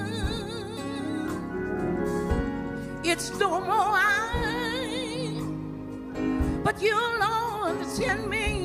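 Slow gospel song: a voice singing long phrases with wide vibrato over sustained accompaniment chords.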